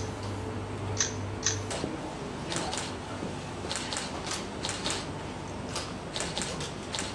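Camera shutter firing over a dozen times at an uneven pace, some shots in quick pairs. A steady low hum stops about two seconds in.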